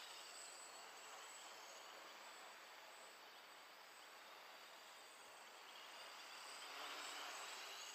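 Faint, distant whir of a quadcopter's four brushless motors (Multistar 2209-980KV) spinning 10x4.5 propellers as it flies away, fading and then swelling again about seven seconds in.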